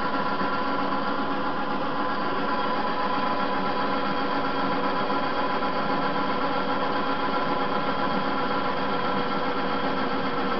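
TV-16 benchtop metal lathe running under load, its motor giving a steady hum with several steady tones while the cutter takes a cut on a metal bar. The cut is heavy enough to chip the cutter tip and bring the motor close to stalling, by the operator's account.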